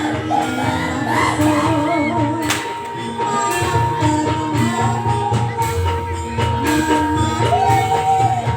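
Live East Javanese jaranan-style music for a trance dance: continuous drum and percussion under a wavering melody line with singing, and a long held high note.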